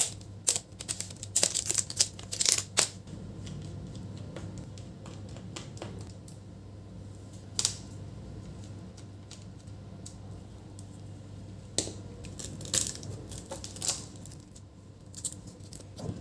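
Plastic clips of an Asus ZenBook UX430 screen bezel clicking and snapping as the bezel is pried off by hand and with a plastic pry tool. The snaps come in a quick cluster at first, then as scattered single clicks over a low steady hum.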